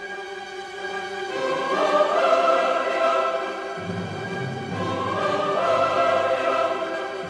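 Choral music: a choir singing slow, sustained phrases, with a low bass part coming in about four seconds in.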